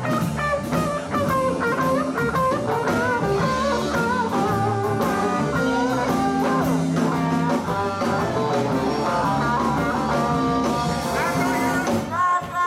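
Live blues band playing with no singing, guitar to the fore over drums and bass.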